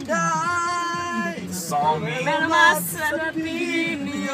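A few voices singing together, holding long notes that bend between pitches.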